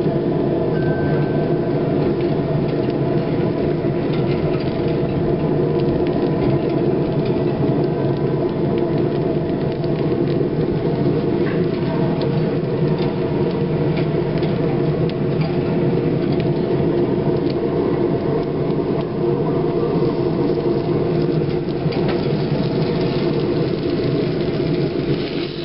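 Steady mechanical hum and whir, with a few faint ticks.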